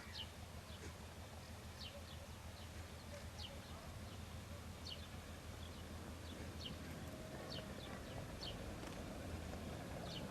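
Faint, steady low rumble of a 3TE10M diesel locomotive's engine, with birds giving many short, high, falling chirps; a rougher noise grows louder toward the end.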